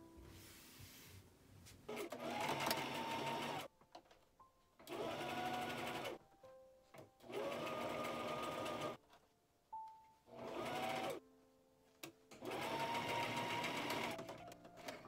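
Domestic electric sewing machine stitching a seam in five short runs, each a second or two long, with the motor's whine rising as each run starts and short pauses between.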